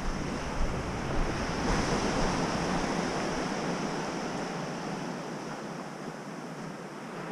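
Waves washing onto a gravelly beach, a surge swelling about two seconds in and then slowly ebbing away.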